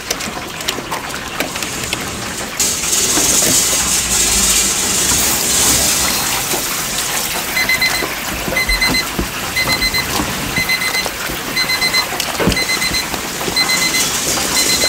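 An electronic alarm beeper sounding short pips about once a second from about halfway through, over a steady hiss that starts abruptly a few seconds in, with occasional low knocks.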